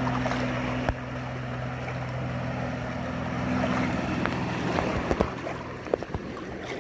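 Motorboat engine running at a steady speed across the water, with wind on the microphone and water rushing past. A few sharp knocks come in the second half.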